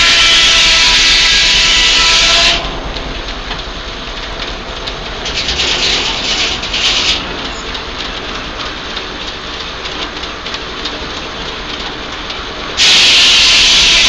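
Antique sawmill at work: the saw cutting through a log with a loud, steady hiss that stops about two and a half seconds in. The mill then runs without cutting, quieter, with some clatter in the middle, until the saw bites into the log again near the end.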